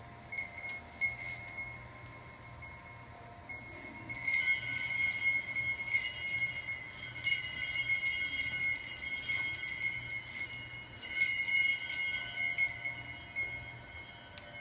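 A sound score of steady high tones, with a jingling, bell-like shimmer that comes in about four seconds in, swells several times and fades out near the end.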